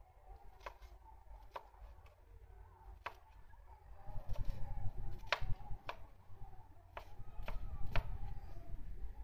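Knife chopping green vegetables on a wooden board: about eight sharp, irregularly spaced chops. A low rumble comes in about halfway.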